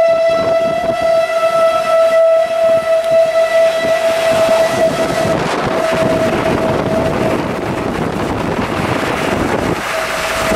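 Outdoor tornado warning siren sounding one steady tone, fading away for a couple of seconds near the end and coming back, over wind rushing across the microphone.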